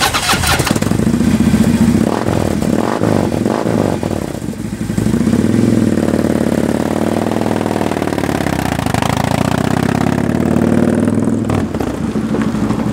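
Harley-Davidson V-twin engine of a motorcycle trike hearse running, with a few uneven swells of revving in the first few seconds. From about five seconds in it holds a steady engine note as the rig pulls away under power.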